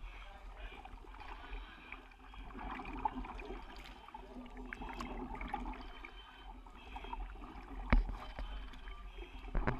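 Water splashing and churning as a diver goes down into a training tank, with a sharp knock about eight seconds in and more knocks near the end.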